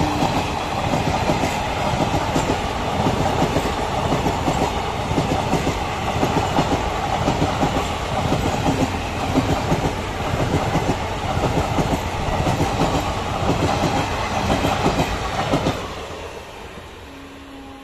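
Express passenger train's coaches passing close at speed, wheels clattering over the rail joints and coach bodies rattling. Near the end the last coach goes by and the sound falls away quickly as the train recedes.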